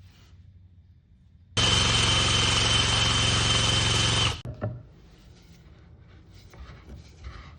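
A power tool runs at a steady speed for nearly three seconds, starting and stopping abruptly, followed by faint knocks and handling of wood.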